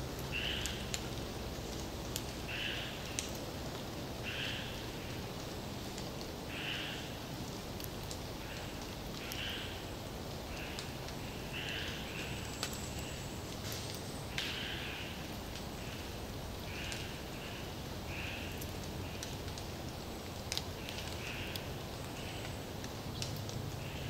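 A small animal in the forest gives short calls again and again, roughly one every second or two at an uneven pace, over a steady background hiss and low hum. Now and then a faint tick sounds.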